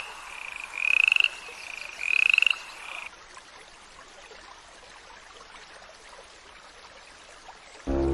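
An animal calling: three short, pulsed, slightly rising calls about a second apart, cut off abruptly about three seconds in and followed by faint hiss. Music starts right at the end.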